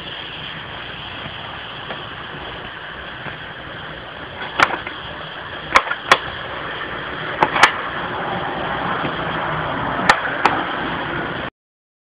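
Homemade copper-coil alcohol jet stove burning with a steady hiss. Several sharp knocks come from about the middle on, as the stove and its glass dish are handled. The sound cuts off suddenly near the end.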